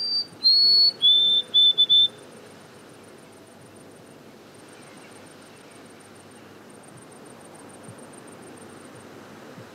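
White-throated sparrow singing one song of clear, pure whistles. Three long notes each step lower in pitch, then three short notes follow at the lowest pitch, all within about two seconds.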